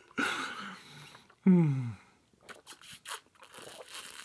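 A person's long breathy exhale, then a short voiced "ahh" falling in pitch, the satisfied sigh after a drink. After it come a few soft clicks and taps.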